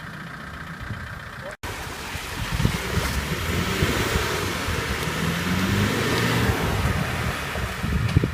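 4x4 diesel engine running, cut off abruptly about a second and a half in, then running louder with its pitch wavering as it revs.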